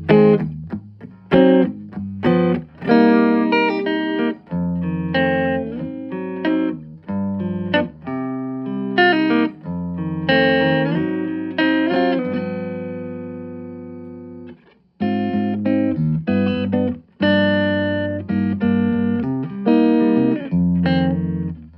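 A plucked electric string instrument played clean through a Fender Bronco amplifier: a series of picked notes and chords. About halfway through, one chord is left to ring and fades for about three seconds, then the playing stops briefly and starts again.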